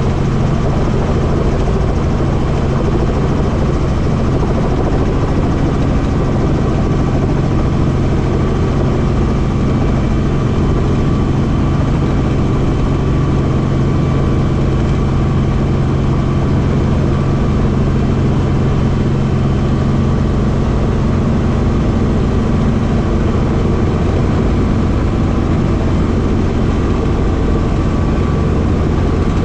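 Helicopter engine and rotor noise, a loud steady drone with a low hum; about two-thirds of the way through the lower hum fades and a slightly higher one takes over.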